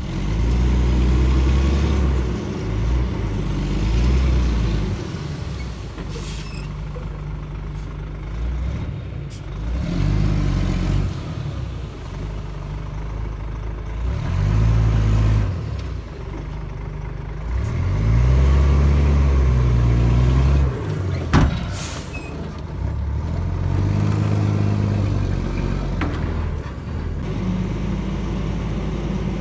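Shantui DH17C2 bulldozer's diesel engine working under load while pushing soil, its low note swelling and easing again and again as the load comes and goes. A single sharp knock about two-thirds of the way through.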